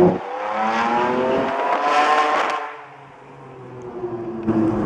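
Decatted Ferrari 599 V12 accelerating hard. There is an upshift right at the start, then the engine note climbs in pitch for about two and a half seconds before falling away, and the revs build again near the end.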